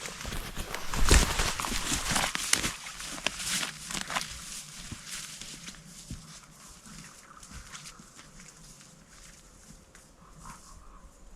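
Irregular rustling and sharp knocks, loudest about a second in and dying down to faint scattered rustles after about four seconds.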